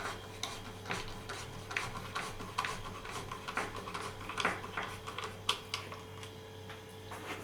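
Irregular small clicks, taps and rubbing as hard parts are handled and fitted by hand, over a faint steady hum.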